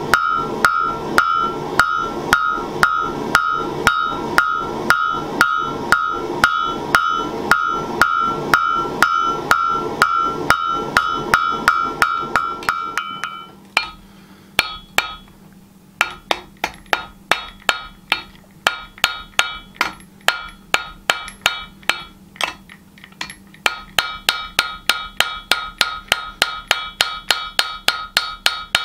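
Blacksmith's hammer striking hot spring steel on an anvil while forging a knife blade, a steady rhythm of about two blows a second, each with a ringing tone. About 13 seconds in the blows stop briefly, then come back lighter and duller, and near the end the ringing blows return at a quicker pace.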